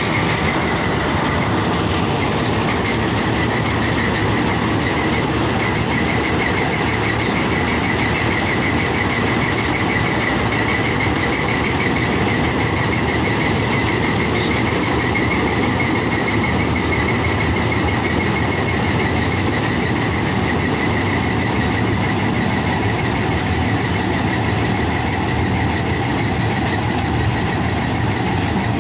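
Standard TSC-513 tractor-mounted combine harvester running steadily while cutting a standing grain crop, its engine and threshing machinery making a loud, even drone. A steady high whine sets in about a second in and continues above the drone.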